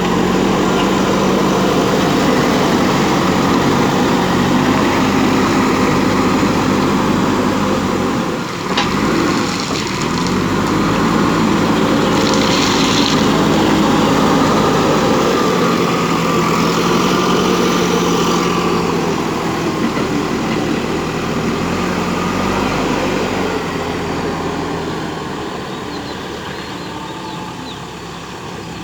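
JCB 3DX backhoe loader's diesel engine running under work, its pitch rising and falling as the machine moves and digs. A sharp knock comes about eight and a half seconds in, and the engine eases off near the end.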